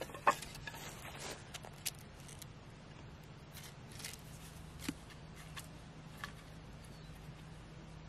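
Split wooden kindling sticks being leaned against one another into a teepee over a fire pit: scattered light wooden clacks and knocks, the sharpest just after the start and a duller knock about five seconds in.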